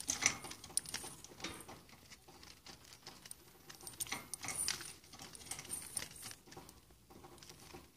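Budgerigar pecking at and nudging a small clear plastic foraging toy across the cage floor, making irregular clicks and taps of beak on plastic with a light rattle of seed. The taps bunch together near the start and again about four to five seconds in.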